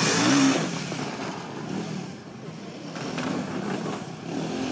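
Motorcycle engine revving, loudest just under half a second in, then running at lower revs with uneven swells.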